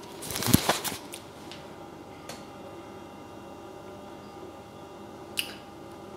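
Handling noise from a handheld camera being swung round: a short flurry of knocks and rustles in the first second. Then quiet kitchen room tone with a faint steady hum and an occasional single click.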